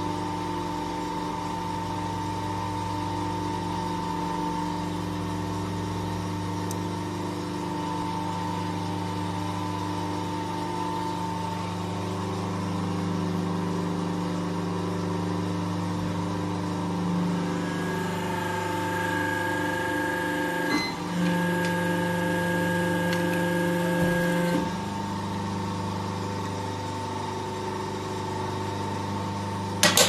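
3 kW electric hydraulic hose crimping machine's motor and pump running with a steady mains hum. For about seven seconds past the middle, a higher whine joins as the pump drives the crimping dies closed on a hose fitting. One sharp knock comes at the very end.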